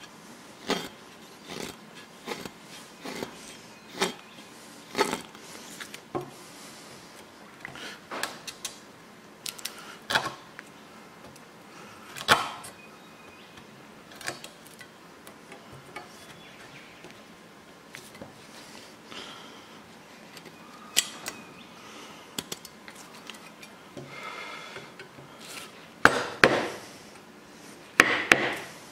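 Machete blade cutting and shaving notches into a peeled wooden stick braced on a post: irregular sharp chops every second or so with scraping strokes between, and a quick run of harder cuts near the end.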